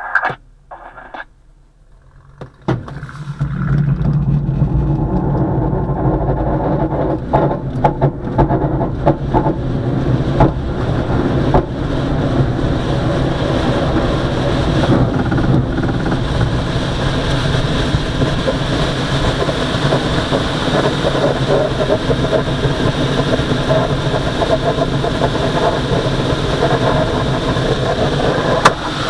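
Aerotow takeoff roll heard from inside a Twin Astir glider's cockpit. About three seconds in, a loud steady rumble of the glider rolling on the runway and rushing air sets in. The tow plane's engine runs ahead.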